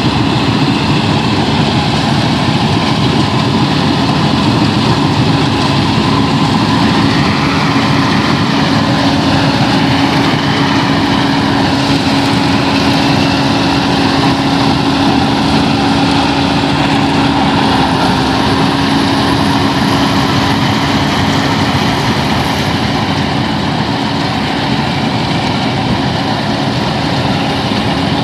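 Engine of a rice-harvesting machine running steadily, with a constant hum and a slight dip in pitch about two-thirds of the way through.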